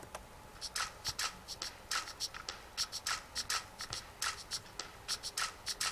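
Writing on paper: quick scribbling strokes, about three a second, in an uneven rhythm.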